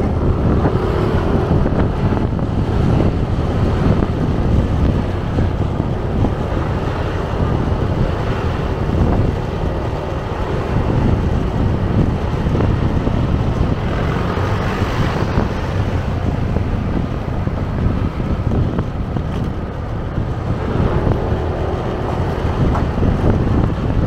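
Wind rushing over the microphone of a moving motor scooter, with the scooter's small engine running and street traffic underneath. The sound is steady throughout.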